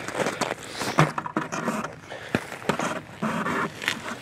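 Hurried footsteps crunching on snow-covered lake ice, with someone breathing hard from running.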